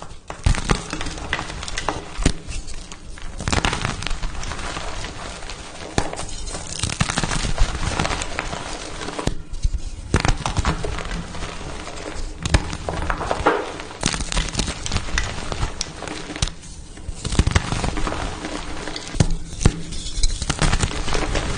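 Pasted gym chalk blocks being crushed, crunching and crackling densely with many sharp snaps, broken by a few short pauses.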